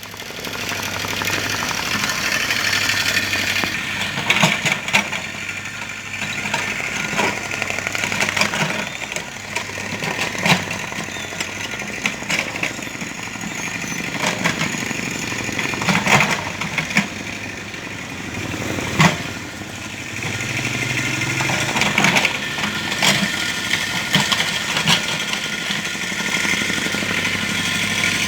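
Mini excavator's engine running steadily while the machine works, with sharp clanks and knocks every few seconds.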